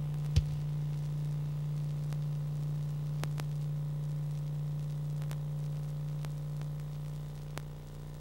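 Steady low electrical hum with faint static, a sharp pop just after the start and a few faint clicks later, the hum weakening slightly near the end.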